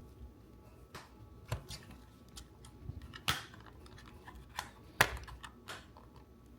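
Scattered light clicks and knocks of a Mustang's plastic steering-wheel trim being pried and handled, with two sharper snaps about three and five seconds in.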